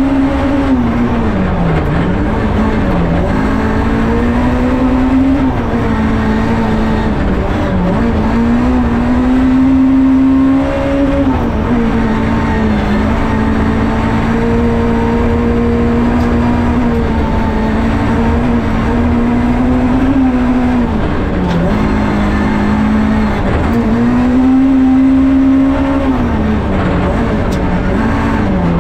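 Rally car engine heard from inside the cabin under load on a gravel stage. Its note holds fairly level for stretches, then dips sharply and climbs back, about eight times.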